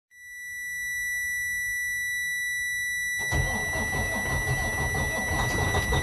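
Steady high-pitched dashboard warning buzzer in a truck cab. About three seconds in, the Detroit DD15 diesel engine starts with a sudden rush of noise and runs under the buzzer. A regular knocking begins near the end: the noise of a connecting-rod bearing that has come out of place, leaving the rod loose.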